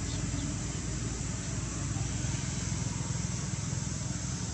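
A motor engine running steadily: a low, even hum with a hiss over it that neither rises nor falls.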